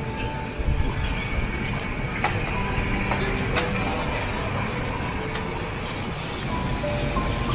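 Steady rumble and hiss of a working rice-roll steamer kitchen, with an oil brush scrubbing across a stainless steel steaming tray and a few sharp clicks.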